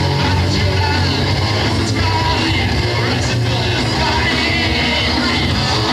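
A metal band playing live: bass guitar, electric guitar and drums, with a yelled vocal over them.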